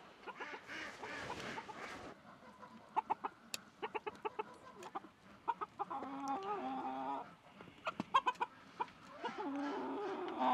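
Silkie chickens clucking softly in short calls, with a longer run of clucks about six seconds in and again near the end. A few sharp ticks are scattered among the calls.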